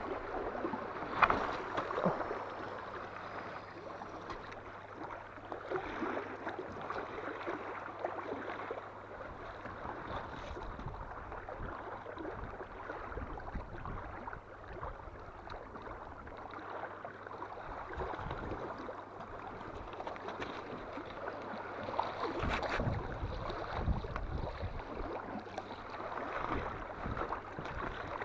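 Waves washing onto the shore in a strong wind: an irregular rushing noise that swells and fades, with louder surges about a second in and again past the middle.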